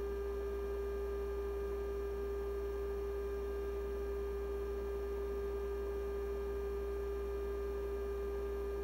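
Steady sine-wave test tone, one pure mid-pitched note held unchanged, reproduced by the LM386 IC audio amplifier of an Elenco AM/FM-108CK kit during a gain test with the volume set 3 dB down. A low mains hum runs underneath.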